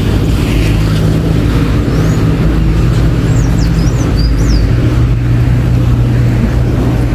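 City road traffic: a loud, steady low engine drone from motor vehicles, with a continuous rumble of traffic noise. A few faint high chirps come through about two seconds in and again between three and four and a half seconds.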